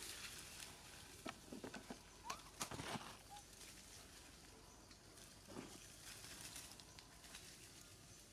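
Faint rustling and crackling of dry leaf litter and twigs as macaques move over the forest floor, in a cluster of soft crackles between about one and three seconds in and again a little before six seconds. A brief faint chirp sounds among the crackles.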